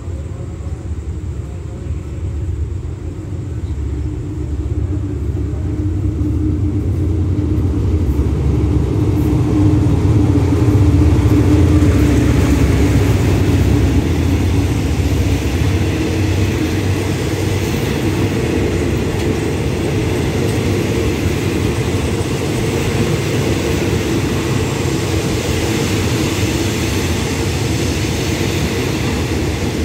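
A GE diesel-electric locomotive (GEA class) hauling a passenger train comes into the station. Its engine drone grows louder and peaks as it passes, about ten seconds in. Then the passenger coaches roll past with a steady rumble of wheels on rail.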